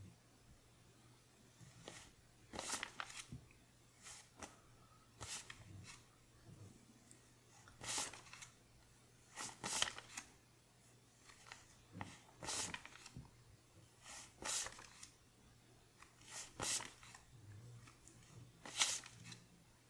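Paper one-dollar bills being flipped one at a time off a handheld stack, each note giving a short crisp rustle, irregularly every second or two.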